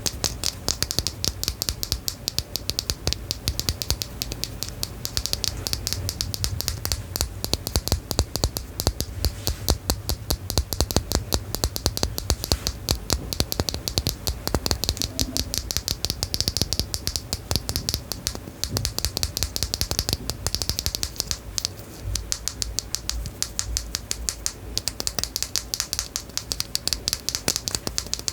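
Rapid, continuous small clicks, many a second, with no pauses: an ASMR trigger sound whose object cannot be named.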